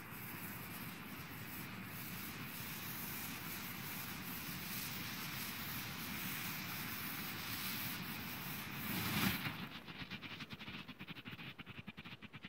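Silver Bengal flare (Blackboxx Bengalo Fatalo No.2) burning with a steady hiss. About three-quarters through it flares up briefly and switches to its strobe stage, a fast even crackle of about seven pops a second.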